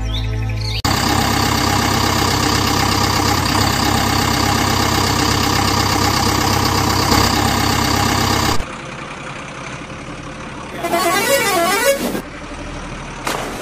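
A dubbed-in truck sound effect: loud, steady engine noise with a horn blaring, lasting about eight seconds, then dropping to a quieter rumble with a brief warbling tone near the end. A short bit of background music ends just before it starts.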